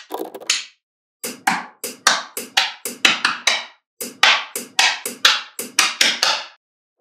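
Background music: a quick run of sharp, woody percussive notes, about three or four a second, with short breaks about a second in and near four seconds, stopping shortly before the end.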